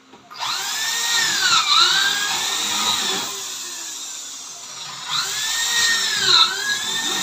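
Electric drill running under the trigger in two long runs, its pitch sagging and recovering partway through each.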